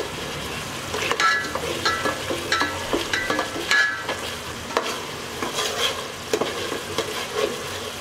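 Metal ladle stirring and scraping a spice paste frying in oil in a metal pot, over a steady sizzle. The ladle's scrapes against the pot come every half second or so for the first few seconds, some with a short metallic ring, then turn into scattered knocks.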